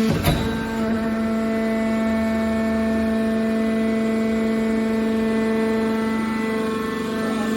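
Hydraulic car baler running: a steady, even-pitched machine hum from its hydraulic power unit, with one sharp clank just after the start.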